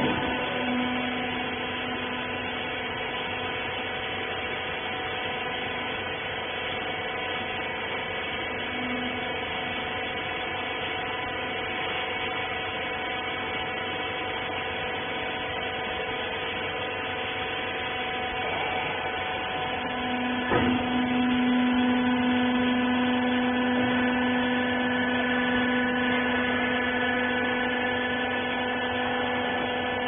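Hydraulic used-clothes baler's power unit running with a steady whine. About 20 seconds in there is a knock, then a lower hum joins in and holds as the sound gets a little louder.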